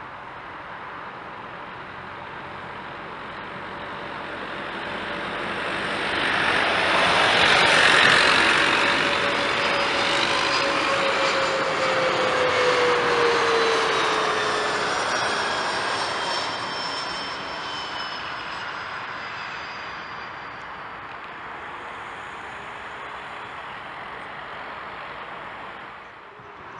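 Bombardier Challenger 604's twin rear-mounted turbofans on landing approach, growing louder to a peak about eight seconds in. As the jet passes, its engine whine falls in pitch, and the sound then fades away.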